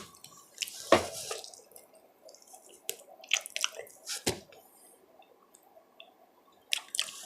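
Close-miked eating sounds: wet lip smacks and chewing clicks, short and scattered, with quiet pauses between them.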